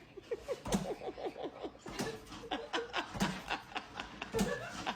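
A person laughing: a quick run of short ha-sounds, several a second, each dipping slightly in pitch.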